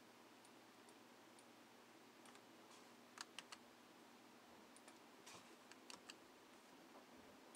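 Faint, scattered keystrokes on a computer keyboard, a few isolated clicks and short runs, as a username and password are typed in.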